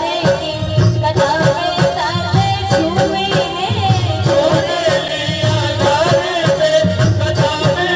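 A Hindi devotional bhajan to Khatu Shyam sung live through a PA, a woman's voice leading over instrumental accompaniment with a steady drum beat.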